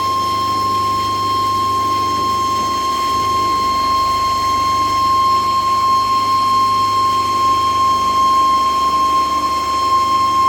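CNC machine running with a steady, high-pitched whine over a low hum, unchanging throughout.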